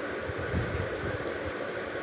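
Steady rushing background noise with an uneven low rumble that swells and fades.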